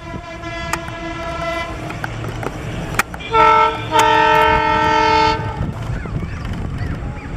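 Locomotive air horn sounding as the train approaches. A fainter blast ends about a second and a half in, then come a short loud blast and a longer loud blast of the same multi-tone chord near the middle.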